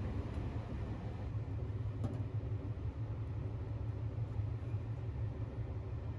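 Steady low rumble of a Sunrise Izumo sleeper train, heard inside the carriage, with one faint click about two seconds in.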